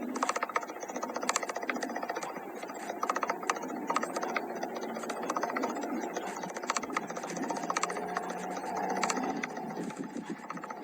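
Rain in a thunderstorm, with a steady wash of noise and dense, irregular ticking and clicking of drops striking a hard surface.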